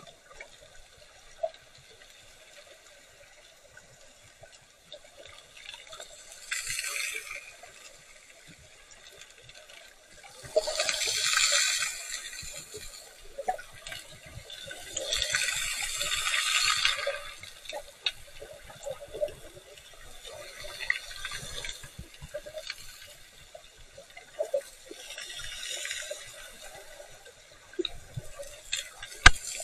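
Underwater recording from an action camera in the sea: muffled water noise with faint crackling, and surges of rushing, hissing water sound every four or five seconds, each lasting a second or two. A few sharp clicks come near the end.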